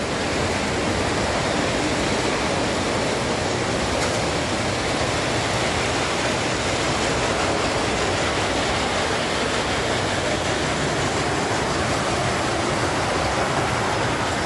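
Large motorized Buddy L toy train set running along its overhead shelf track: a steady, even noise of wheels rolling on the metal rails.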